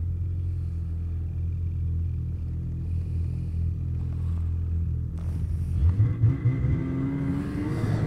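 Snowmobile engine running at low speed with a steady low drone. About six seconds in, the revs rise briefly, with a few short surges.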